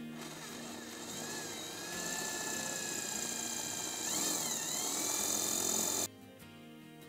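Corded electric drill with a masonry bit boring through a roof tile, run as a plain rotary drill without hammer action. The motor whine wavers in pitch as pressure on the bit changes, and the drilling stops suddenly about six seconds in.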